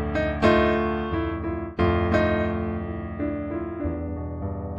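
Background solo piano music, played freely: chords are struck and left to ring and fade, with a few new chords through the passage.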